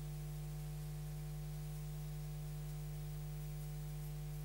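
Steady electrical mains hum: a low buzz with a row of evenly spaced higher tones above it.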